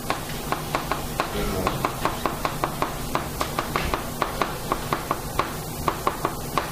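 Chalk writing on a blackboard: a quick, irregular run of sharp taps and short strokes, several a second.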